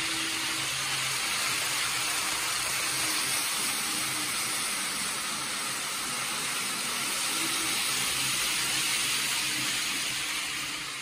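Kato N gauge Shinkansen model trains running on the layout's track: a steady hiss of wheels rolling on the rails with a faint motor hum, fading out near the end.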